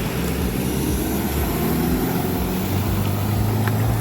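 An engine running steadily at a held pitch, growing louder about two-thirds of the way through.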